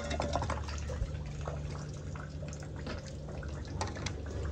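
Sewage water sloshing and dripping in a manhole as a worker moves in it, over a steady low machine hum.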